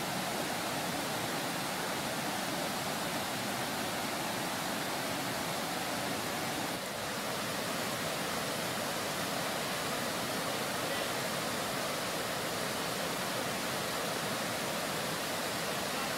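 Swollen, fast-flowing floodwater rushing steadily around a stranded car, a continuous noise of white water.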